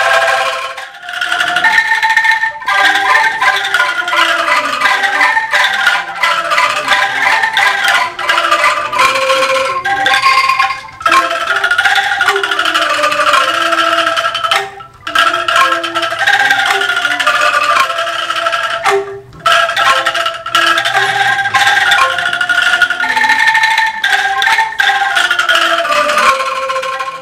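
An ensemble of bamboo angklung shaken to play a melody of clattering pitched notes, with a few brief breaks between phrases.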